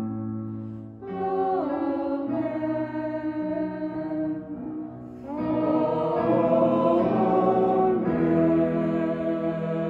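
A small group of voices singing a slow hymn in long held chords, the chord changing every second or few seconds. It grows louder about five seconds in.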